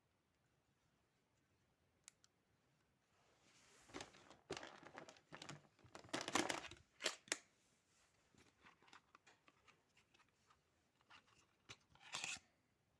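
Packaging being torn and crinkled in several bursts, loudest around the middle, then lighter rustling and a few clicks, with one more short burst near the end.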